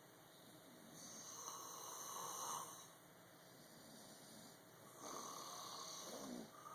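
A person snoring faintly: two drawn-out snores, about four seconds apart.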